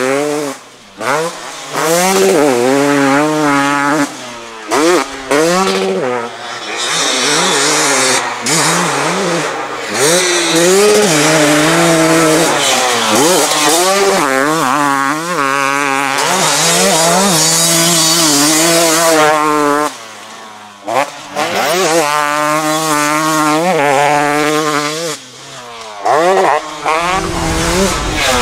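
2023 KTM 250 SX single-cylinder two-stroke engine revving hard on a dirt bike being ridden. Its pitch climbs and falls again and again as it winds out through the gears, with brief drops whenever the throttle is chopped.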